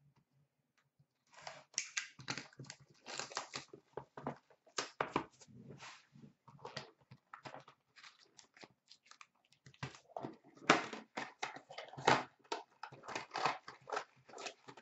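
Upper Deck Contours hockey card box being torn open and its foil packs handled: irregular tearing, rustling and crinkling of cardboard and wrapper, starting about a second in and busiest near the end.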